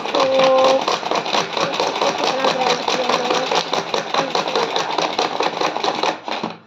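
Hand-operated kitchen chopper worked rapidly by hand, its blades churning banana milkshake: a fast, even rattling whir that stops about six seconds in.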